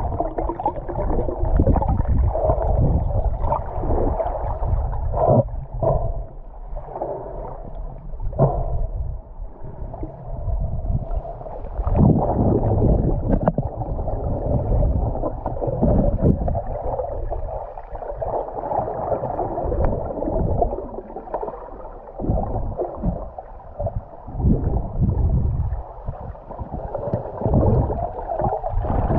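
Muffled underwater noise heard through an action camera's waterproof housing: water gurgling and swishing around the camera, with irregular low thumps as the diver moves and kicks his fins.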